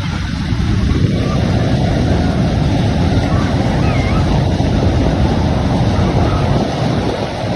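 WCA Himalaya carnival ride running at speed, a steady rushing rumble from its cars going around the undulating track, building up about a second in.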